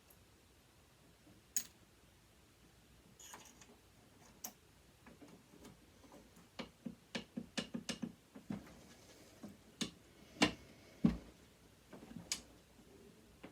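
Sharp clicks and knocks of metal parts and tools being handled while a sewing machine is taken apart: a lone click early, a quick run of light clicks in the middle, then a few louder knocks near the end.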